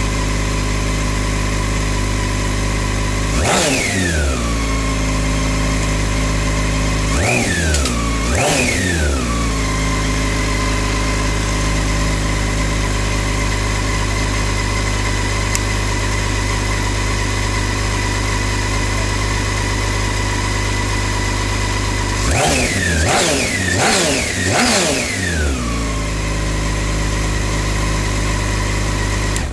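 BMW K1600 GTL's inline-six engine idling steadily, blipped briefly once about three seconds in, twice more around eight seconds, and in a quick run of about four blips near the end, each rev rising and falling back to idle. It is running on freshly fitted ignition coils for cylinders two and four, replaced to cure a misfire. The sound stops suddenly at the very end.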